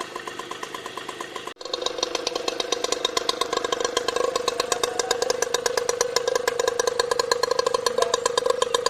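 Suzuki RC100's two-stroke single-cylinder engine running steadily, a rapid, even train of exhaust pulses, broken by a brief drop-out about a second and a half in.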